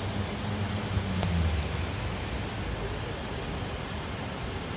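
Heavy rain falling on a city, a steady hiss with scattered drops ticking close by. A low hum underneath fades out after about a second and a half.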